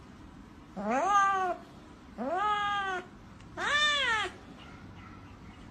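Ginger cat meowing three times, each meow rising then falling in pitch, with short pauses between them.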